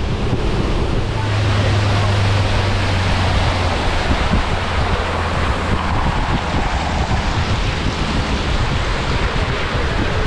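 A boat's engine running at speed, a steady low hum under a loud rush of wind on the microphone and water against the hull. The engine hum swells about a second in and eases a few seconds later.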